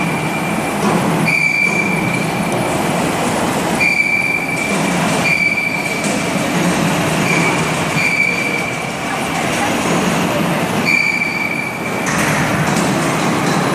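Hydraulic plate shear running: steady mechanical noise with a high-pitched whine that keeps switching on and off for a second or less at a time.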